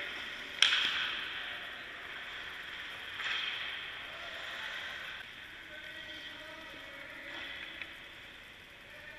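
A sharp crack of a hockey shot, puck striking stick or goalie gear, about half a second in, ringing out in the rink's echo. Softer scraping of skates on ice and a couple of light puck clicks follow.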